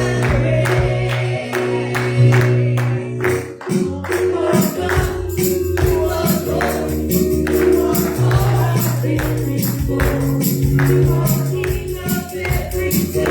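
Live church worship music: a band playing an upbeat gospel praise song, with a tambourine keeping a fast, steady beat over held bass notes and chords.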